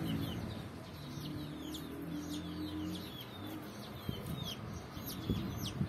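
Chickens in a coop yard: many quick high chirps, each falling in pitch, with a hen's low clucking notes from about one to three seconds in.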